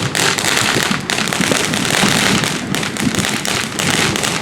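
Dense, rapid crackling and popping of fireworks and firecrackers, many small reports overlapping one another.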